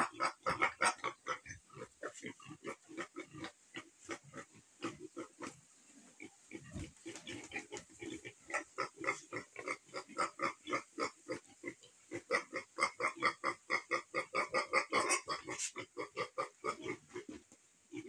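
Piglets grunting in quick short calls, several a second, quieter for a few seconds and then busier again.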